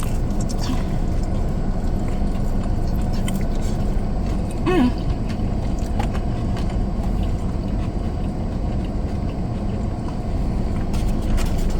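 Steady low rumble of a car, heard from inside its cabin, with a brief hummed 'mm' about five seconds in.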